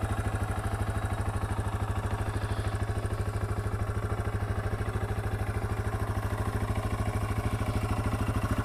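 A 2021 Yamaha TW200's air-cooled single-cylinder four-stroke engine idling steadily after a warm start, with an even, rapid beat.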